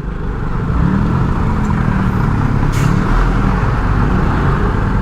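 Small motorcycle's engine running through slow city traffic, its pitch rising and falling a few times as the throttle is worked, over steady road and wind rumble on the bike-mounted action camera's microphone.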